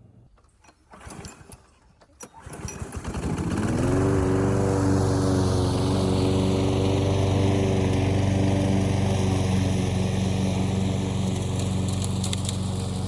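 Briggs & Stratton Quantum single-cylinder flathead engine on a Craftsman push mower starting up about two to three seconds in, its pitch rising as it comes up to speed, then running steadily.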